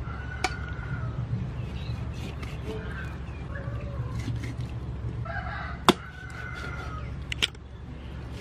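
A rooster crowing twice, each crow about a second and a half long. Between and after the crows come three sharp chops of a blade on a chopping board, the loudest about six seconds in.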